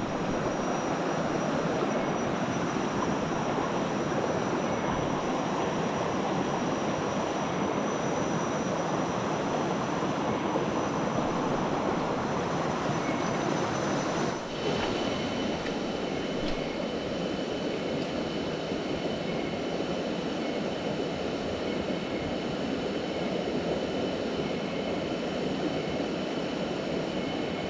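Steady rush of river rapids, with a brief dip about halfway through.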